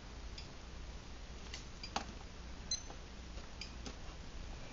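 Quiet room with a low steady hum and about half a dozen faint, scattered ticks; one tick a little under three seconds in has a brief high metallic ring.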